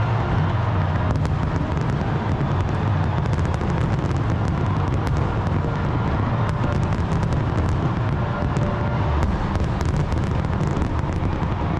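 Fireworks display: a dense, continuous rumble of bursts with many sharp crackles scattered through it.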